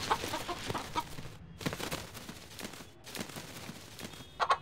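Rooster flapping its wings and scrabbling among newspapers on a table: a run of quick, irregular taps and rustles, with two short louder sounds just before the end.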